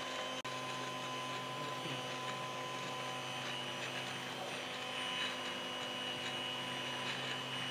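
Electric stand mixer running steadily, its wire whisk beating eggs into a liquid batter in a stainless steel bowl. It gives an even motor hum and whine.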